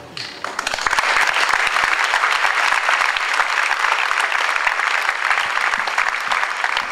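Theatre audience applauding, swelling over the first second and then holding steady.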